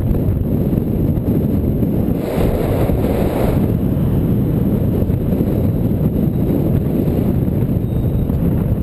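Steady wind buffeting on a bicycle-mounted camera's microphone while riding. A passing car's tyre noise swells briefly about two to three and a half seconds in.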